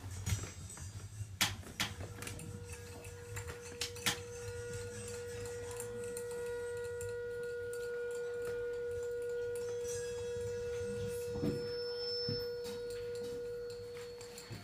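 One steady pitched tone held unwavering for about twelve seconds, starting about two seconds in, with faint higher overtones, from a free-improvised performance on harmonium pipes, electronics and prepared saxophone. A few sharp clicks and knocks of handled objects come in the first seconds.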